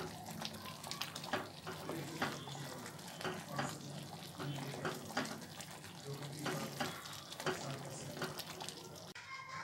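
Wooden spatula stirring spinach into a simmering creamy gravy in a steel pan, with irregular scrapes and taps against the pan over a low bubbling. The stirring stops near the end.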